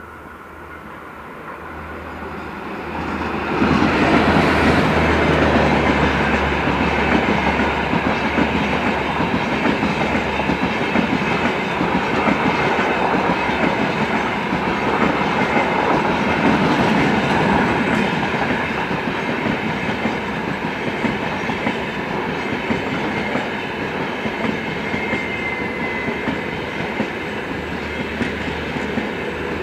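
WAP-4 electric locomotive and Humsafar Express coaches passing close by. The sound builds over the first four seconds as the locomotive arrives, then holds as a steady rumble and clickety-clack of wheels on rail while the coaches run past.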